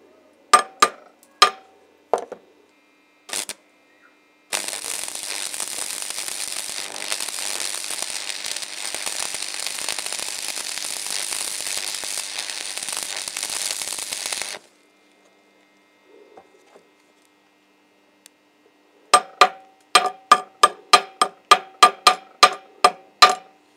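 A few chipping-hammer knocks on a steel plate, then about ten seconds of a stick-welding (MMA) arc crackling steadily as a 2.4 mm 6013 rod burns. Near the end a quick run of about fifteen ringing chipping-hammer strikes, about three a second, knocks the slag off the fresh weld.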